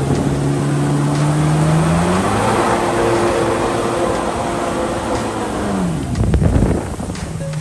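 Jet ski engine running, its pitch rising about two seconds in and easing back down near six seconds. A loud rush of noise follows around six to seven seconds, and then the engine settles back to a steady note.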